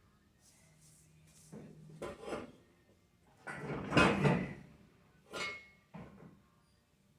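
Several knocks and clatters of objects being handled, the loudest a longer rough sliding clatter about four seconds in.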